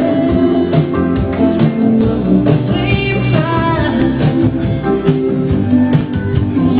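Background music: a song with singing and guitar.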